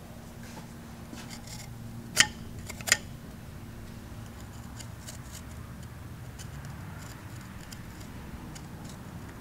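Steel screwdriver tip scraping and ticking against the exhaust valves of a cast-iron Jeep 4.0 cylinder head as the valve edges are probed, with two sharp metallic clicks about two and three seconds in, over a steady low hum.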